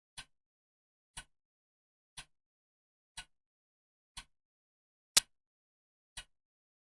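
Clock ticking steadily once a second, each tick a sharp click with silence between; one tick about five seconds in is much louder than the rest.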